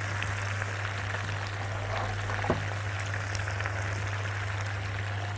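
Penne, sausage and sauce sizzling and bubbling steadily in a hot wok as béchamel is ladled onto it, over a steady low hum. There is one faint tap about two and a half seconds in.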